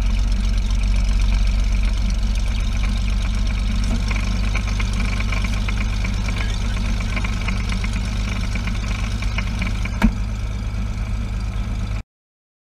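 Light single-engine plane's piston engine and propeller idling steadily, heard from inside the cabin as a low, even drone. A single sharp click about ten seconds in, and the sound cuts off abruptly near the end.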